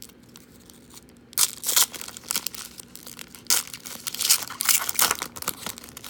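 Foil wrapper of a trading-card pack being torn open and crinkled by hand: quiet at first, then a run of sharp crackling tears starting about a second and a half in.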